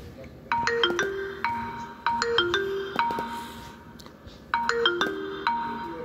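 A Funtouch OS 4 ringtone playing from a Vivo phone's loudspeaker: a short melody of bright ringing notes that starts about half a second in and repeats about four seconds later.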